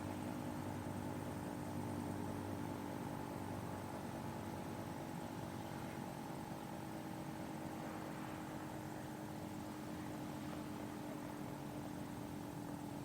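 Federal Signal 2T22 dual-tone warning siren holding a steady chord, the Alert signal, with no rise or fall in pitch.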